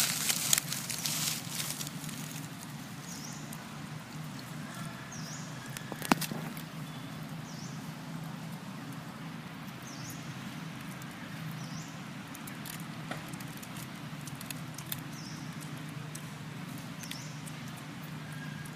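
Dry leaf litter crackling and rustling for the first couple of seconds, then a single sharp click about six seconds in. Underneath runs a steady low hum, with a faint short high chirp repeating about every two seconds.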